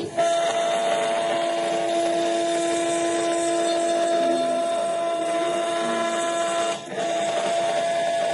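CNC router spindle milling an acrylic tube turned on the fourth-axis chuck: a steady high whine with cutting hiss, starting abruptly just after the start and dropping out for a moment about seven seconds in.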